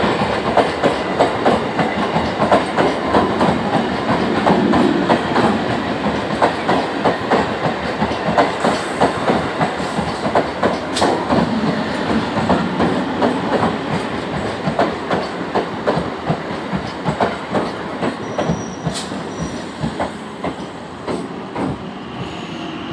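Electric multiple-unit suburban local train running in past the platform, its wheels clattering in a steady clickety-clack over the rail joints. The sound fades gradually as the train slows on arrival.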